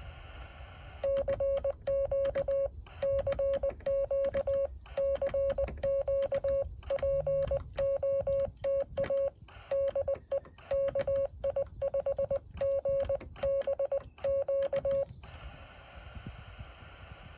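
Yaesu FT-817's CW sidetone: a single steady beep keyed in Morse code dots and dashes, starting about a second in and stopping a couple of seconds before the end. The radio's receiver hiss cuts out while the code is sent and comes back afterwards, as it does while the station is transmitting.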